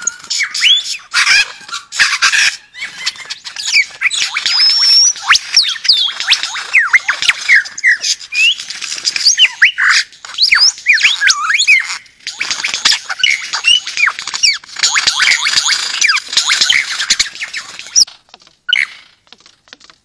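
Male superb lyrebird singing its display song: a loud, rapid, ever-changing run of whistled glides, sharp clicks and chattering notes, much of it mimicry of other birds. It breaks off briefly near the end.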